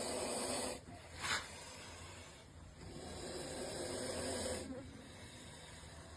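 A snake hissing in long, breathy hisses: one ends about a second in, a short sharp hiss follows, then a longer hiss runs from about three seconds to nearly five.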